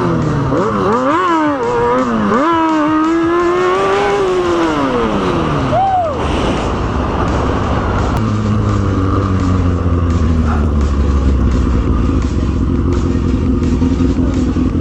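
Motorcycle engines revving, their pitch climbing and falling several times in quick swings, then settling about six seconds in into a steady low rumble that holds until near the end.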